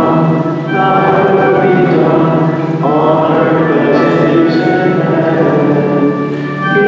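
Liturgical singing in long, held, chant-like notes over a steady low accompaniment, changing note every two seconds or so.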